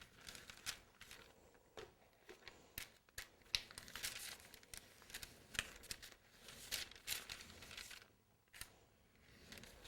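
Faint crinkling and rustling of a stiff acetate sheet being handled and worked over iced cake, in short irregular strokes.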